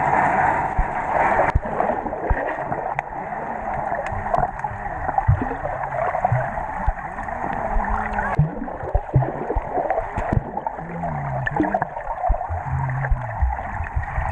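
Swimming-pool water heard underwater through a GoPro's waterproof housing: a steady muffled churning and bubbling with scattered clicks and knocks, easing a little about eight seconds in.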